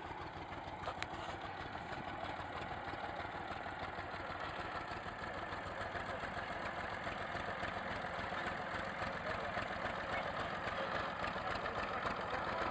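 Small farm tractor's engine running at low, steady revs as it tows a passenger cart, growing louder as it comes nearer.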